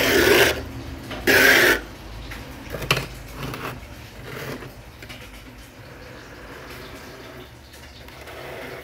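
Frost being scraped and crunched in a freezer compartment: two short, loud scrapes in the first two seconds, a few small knocks, then a faint low steady hum.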